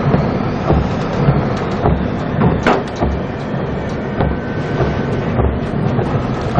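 Storm at sea heard from inside a ship's bridge: a steady roar of wind and spray lashing the windows, with a low thump about once a second and scattered sharp knocks, one louder crack near the middle.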